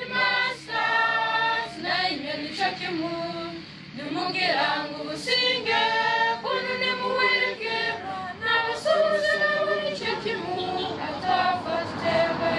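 A group of young voices, boys and girls, singing together as a choir without instruments, holding notes and moving between them in several parts.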